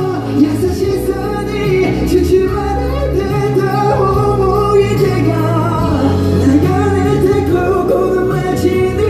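A male vocalist singing live into a handheld microphone over instrumental accompaniment, the melody moving in long held notes over sustained bass notes.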